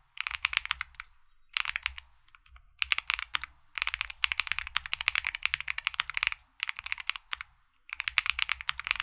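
Typing on a mechanical keyboard: quick runs of key clicks and thocks in several bursts separated by short pauses, the longest run lasting about three and a half seconds in the middle.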